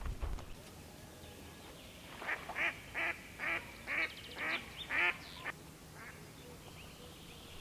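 A bird calling: a run of about eight short, harsh calls, about two a second, starting about two seconds in and stopping about halfway through. Faint high chirps from other birds sound behind them.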